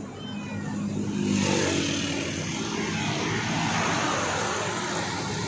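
Passing road traffic: a motor vehicle's engine hum rising as it goes by, then a steady rush of traffic noise. A kitten mews faintly at the very start.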